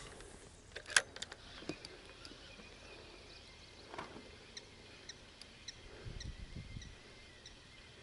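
Spinning reel being worked during a lure retrieve: a few sharp clicks about a second in, then faint, evenly spaced high ticks, about two or three a second, in the second half.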